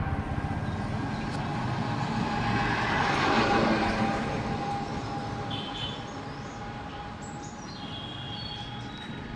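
Motor vehicle engine running and passing along a road, swelling a few seconds in and then fading away. A few short high bird chirps come in the second half.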